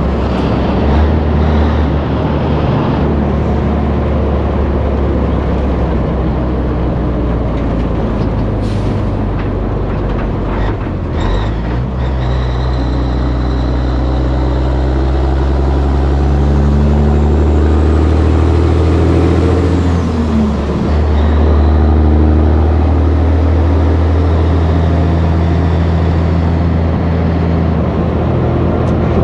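1984 Peterbilt 362 cabover's straight-stacked Caterpillar diesel engine running steadily while the truck travels at highway speed. The engine note changes pitch about twelve seconds in and dips briefly about twenty seconds in.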